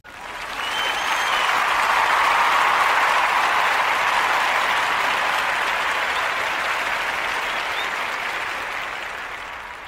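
Crowd applause, swelling in over the first second or two and fading away near the end.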